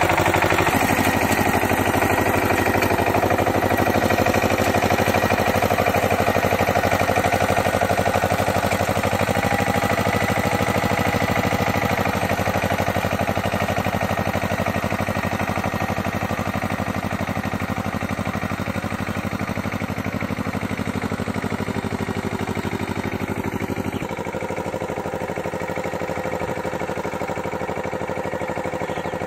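Kamco power tiller's single-cylinder diesel engine running steadily under load as it works through a flooded paddy field. About three-quarters of the way in, the engine sound drops and becomes more distant.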